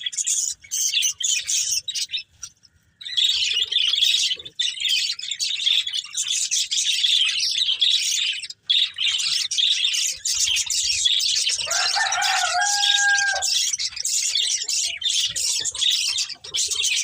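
Budgerigars chirping and chattering in a dense, rapid stream of high twitters, with a brief lull near the start and a lower, steadier call about twelve seconds in.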